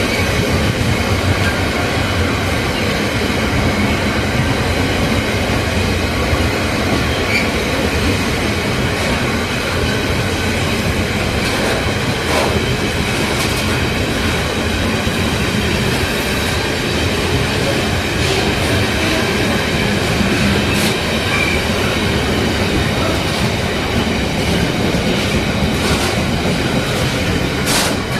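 A train rolling along the track: a steady, loud rolling noise with faint high tones held over it, and a few sharp clanks, one about halfway through and a couple near the end.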